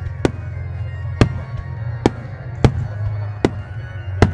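Aerial firework shells from a starmine display bursting as sharp, echoing bangs, about six in four seconds. Music plays underneath them.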